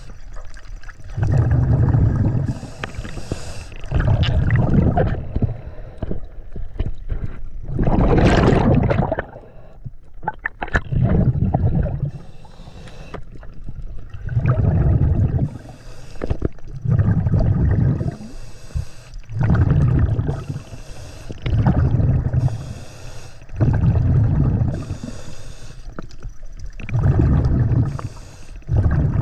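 Scuba diver breathing through a regulator underwater: a brief high hiss on each inhale alternating with a low bubbling rush on each exhale, about one breath every two to three seconds.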